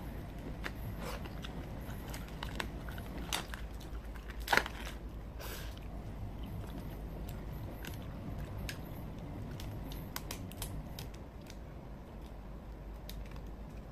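Cooked crab shell cracking and snapping as it is pulled apart by hand, with chewing of the meat: a run of scattered sharp cracks, the loudest about four and a half seconds in.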